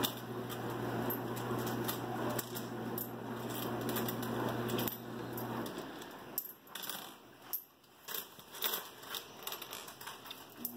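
Coins clinking, picked one by one from a pile on the countertop and dropped into an aluminium foil boat floating in water, in many small irregular clicks. A steady background hum stops about six seconds in.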